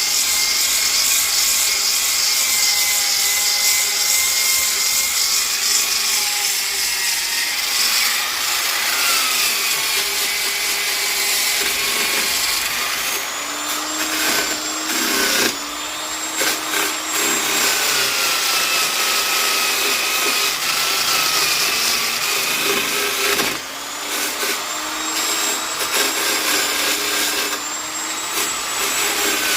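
Black & Decker electric polisher fitted as a sander, running against hardwood (ipê roxo) with a steady rough grinding hiss over the motor's whine. The whine's pitch sags and recovers several times.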